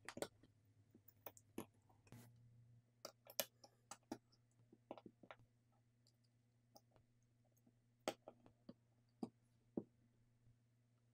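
Faint, irregular clicks and taps of small smartphone parts and hand tools being handled as the phone is reassembled. They come thickly for the first five seconds and then only now and then, over a faint steady hum.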